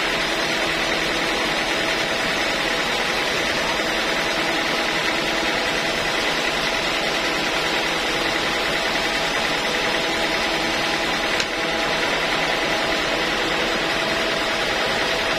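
Homemade band sawmill running steadily: a constant machine drone with a faint high whine, unchanging throughout.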